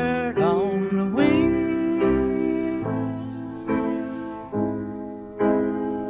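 Demo recording of a slow piano ballad: piano chords struck about once a second, with a voice sliding up into a held note near the start.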